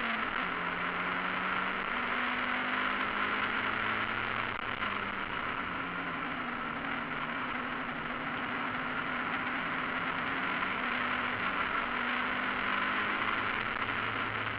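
Mazda MX-5 race car's four-cylinder engine heard from inside the open cockpit at racing speed, its pitch shifting up and down several times under heavy wind and road noise.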